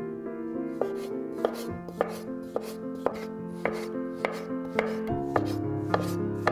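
Chef's knife slicing cornichons on a wooden cutting board, the blade knocking on the board about twice a second from about a second in, over soft background music.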